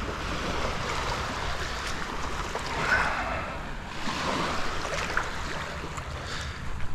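Small waves of shallow surf washing in over wet sand, with scattered clicks and scrapes from a long-handled metal sand scoop digging through the sand and shells.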